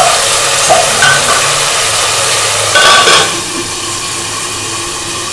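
Onions and tomatoes sizzling in oil in a large aluminium pot, with a few small clinks. About three seconds in, the aluminium lid clanks down onto the pot with a brief ring, and the sizzling is quieter under the lid.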